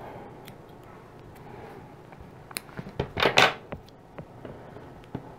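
Hands handling a crocheted doily and thread on a wooden table: light rustling and scattered small clicks, with a louder clatter and rustle about three seconds in as small metal embroidery scissors are set down.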